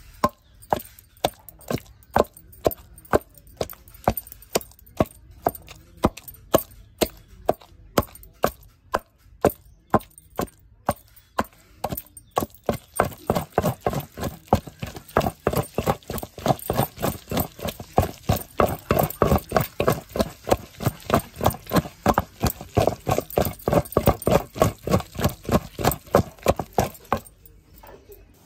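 Wooden pestle pounding tomato-peanut-green chilli chutney in a stone mortar: steady, regular thuds of wood on wet paste and stone. The strokes come about two a second at first, then quicken to about three a second about halfway through, and stop shortly before the end.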